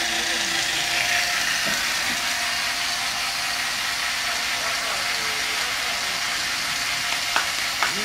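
Chainsaw engine idling steadily. A few sharp claps come in near the end.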